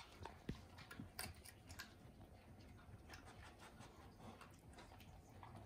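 Faint, irregular small clicks from a dog eating dry kibble off the floor, in an otherwise near-quiet room.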